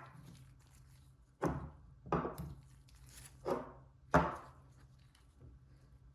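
Several sharp knocks and clatters of hard objects set down or handled on a workbench, each with a short ringing tail, four of them spread over a few seconds, over a faint low steady hum.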